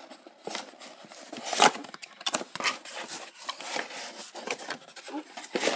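Cardboard box packaging and a plastic-cased mini air compressor being handled during unboxing: a run of rustles, scrapes and light knocks, the loudest about one and a half seconds in.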